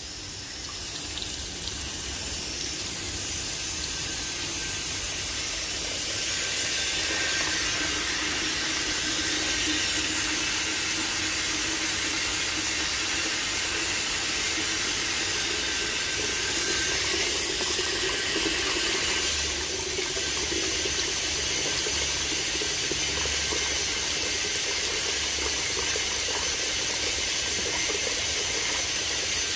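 Water running from a tap into a container as it fills: a steady rush that grows louder over the first several seconds. Its tone rises slowly as the container fills.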